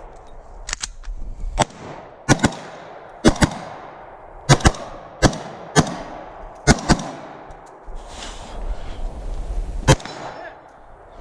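Gunfire during a timed 3-gun stage: about a dozen shots, many in quick pairs, then a pause of a few seconds before one last shot near the end. Metallic clangs of hits on steel targets ring in with the shots.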